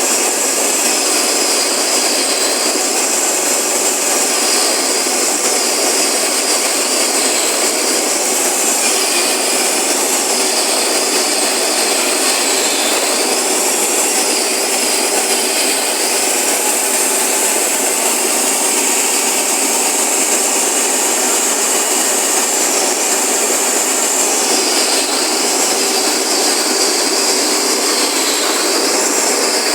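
Compactor truck's engine running steadily, with a high whine that slowly rises and falls in pitch.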